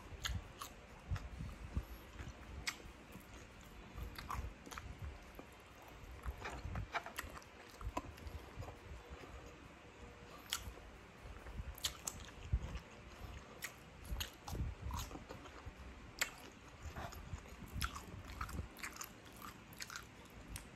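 A person biting and chewing crisp cucumber sticks: irregular crunches and mouth clicks.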